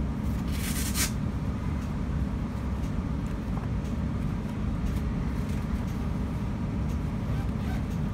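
Steady low rumble of a tram's passenger cabin while the tram runs, with a short hiss about a second in.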